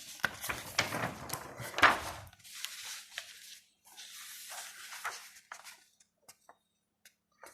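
Paper rustling and crinkling as a folded lyric poster is handled and unfolded, loudest in the first two seconds, with further rustles and then only a few light ticks of paper near the end.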